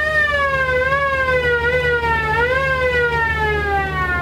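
Modern inboard engine of a vintage wooden runabout under throttle: a high whine that wavers and climbs again a little past halfway, then slowly falls, over a steady low rumble.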